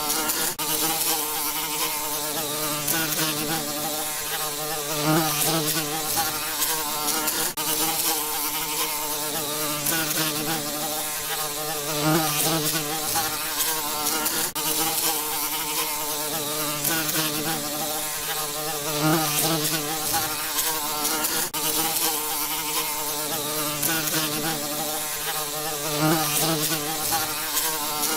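Flying bees buzzing: a steady, wavering wingbeat hum that swells briefly about every seven seconds.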